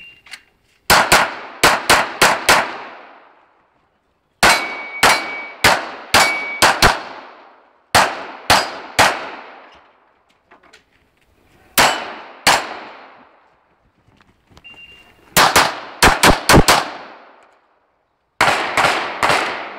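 Glock 17 9 mm pistol fired in quick strings of two to six shots, each shot trailing off in a short echo, with gaps of one to two seconds between strings. After a few of the shots comes a brief metallic ring.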